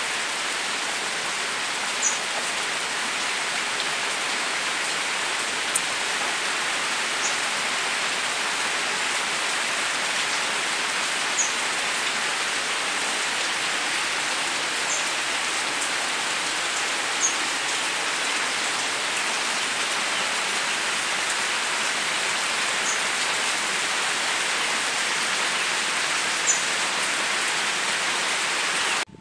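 Steady rain pouring down on garden plants, an even hiss, with a brief sharp tick now and then.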